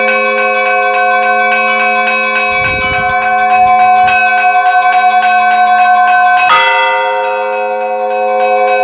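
Russian church bells ringing (kolokolny zvon): small bells struck in quick, even strokes over several sustained ringing tones. A heavier bell strikes once about two-thirds of the way through.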